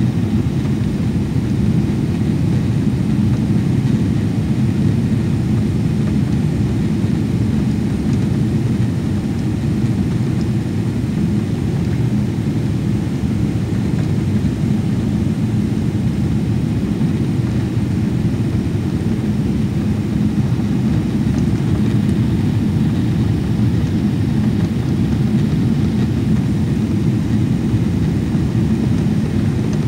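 Jet airliner cabin noise in cruise-like flight, heard from inside the cabin: a steady, low, even rush of engine and airflow noise with a faint constant hum, unchanging throughout.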